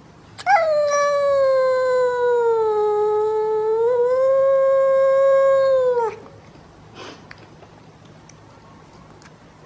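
A cat giving one long, drawn-out yowl of about five and a half seconds. Its pitch sinks slowly, lifts a little near the four-second mark, and drops away as it ends.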